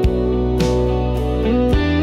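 Instrumental passage of a song: guitar melody with held and sliding notes over a steady bass line, with a few sharp percussion strikes.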